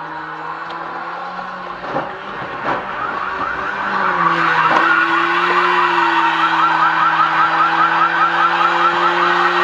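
A car on the road with a steady drone. There are two sharp knocks about two seconds in. From about four seconds in, a fast, loud repeating warble of about five pulses a second sets in, like an alarm or the yelp of an emergency siren.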